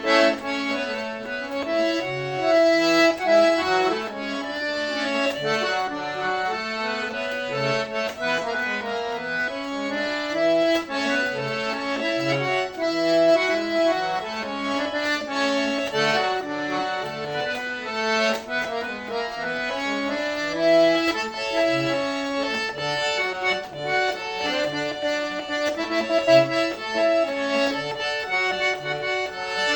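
Accordion playing a tune: a melody and chords of held reedy notes over an even pulse of short bass notes.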